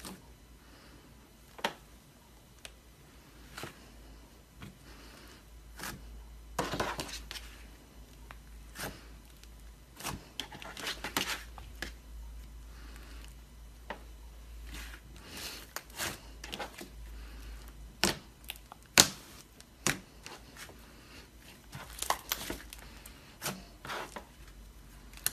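Hands pressing, folding and stretching a thick gold and purple slime, giving irregular sharp pops and crackles with short stretches of crinkly, tearing-like sound as the slime pulls apart.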